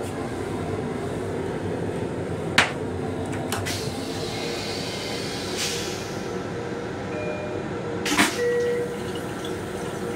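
Steady running rumble of a Metro-North M7 railcar heard inside its restroom. About two and a half seconds in there is a sharp clack as the plastic toilet seat is lowered onto the bowl, with lighter clicks just after and another knock near eight seconds.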